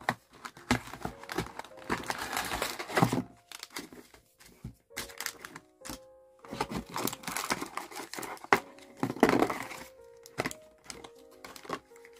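Cardboard, paper and foil packaging of a COVID-19 antigen home test kit crinkling and rustling as it is handled and unpacked, in two longer spells with scattered taps and thunks on the table. Soft background music with steady held tones runs underneath.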